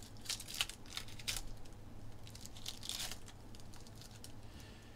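Trading-card pack wrapper being torn open and crinkled by hand, in short bursts through the first second and a half and again about three seconds in.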